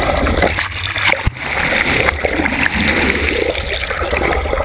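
Water rushing and gurgling against an underwater camera housing towed beside a moving boat, with a heavy low rumble and a single knock about a second in.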